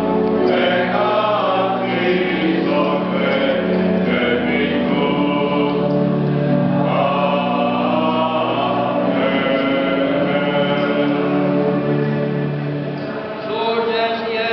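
A choir singing a slow liturgical chant in long held notes over a sustained low tone. Near the end the singing dips briefly, then a new phrase begins.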